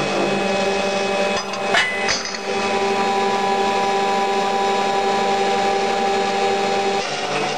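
Servo-driven carbide circular saw machine running with a steady whine made of several even tones. A short clatter of sharp knocks comes about a second and a half in, after which the steady whine carries on.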